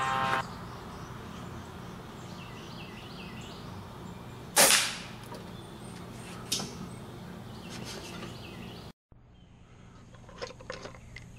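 A single shot from a Crosman GuideHawk .22 air rifle about four and a half seconds in: a sharp crack with a brief ring, the loudest thing here. A fainter sharp click follows about two seconds later.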